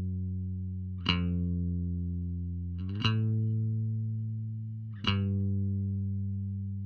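Harley Benton JB-75 Jazz-Bass-style electric bass played clean: a sustained note or chord is struck about every two seconds, three times, each left ringing and slowly fading.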